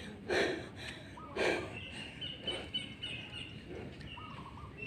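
Small birds chirping and calling repeatedly in the background, with two brief louder noises about a third of a second and a second and a half in.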